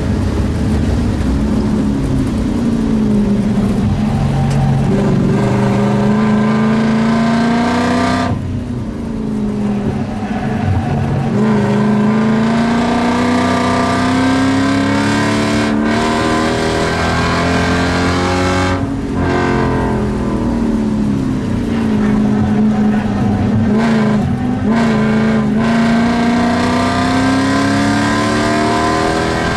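BMW E30 Alpina B3's straight-six engine heard from inside the cabin, driven hard on a race track: its pitch climbs again and again under acceleration, with brief drops at gear changes and lifts, about four of them.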